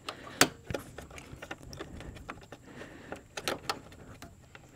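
Scattered light clicks and knocks as hands work extended-reach hose clamp pliers on a radiator hose's spring clamp, metal tapping against the clamp and surrounding plastic. The sharpest click comes about half a second in, with a short cluster of them a little past the middle.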